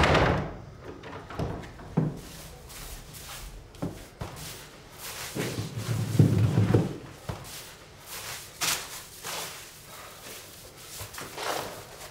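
Footsteps on a wooden parquet floor with scattered knocks and scraping as a person moves about a room handling things. A heavier thud with scraping about six seconds in is the loudest sound.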